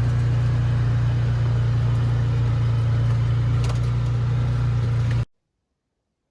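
An engine running steadily at constant speed with a strong low hum, cut off abruptly about five seconds in.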